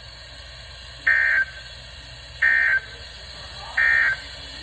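Three short, harsh EAS end-of-message data bursts from a NOAA weather radio, about 1.3 s apart. They signal that the severe thunderstorm warning message has ended.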